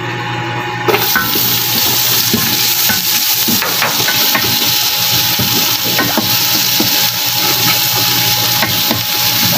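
Onions sautéing in hot oil in a pan: a steady sizzle that starts suddenly about a second in, with the scattered clicks and scrapes of a utensil stirring them.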